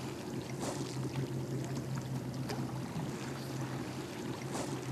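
Outdoor ambience at the water's edge: a steady low hum under a light wash of noise, with a couple of faint ticks.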